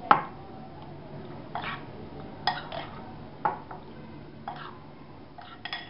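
A metal spoon scrapes and clinks against a glass bowl while stirring chunks of raw chicken in a wet marinade. The short scrapes come at irregular moments, roughly once a second.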